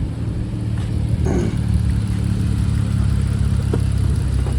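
Dodge Charger V6 engine idling steadily. The engine has an intermittent misfire on cylinder 6 that, in the owner's words, is working right now.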